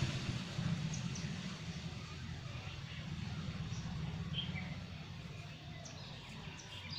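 Steady low background hum with a few short bird chirps scattered through it.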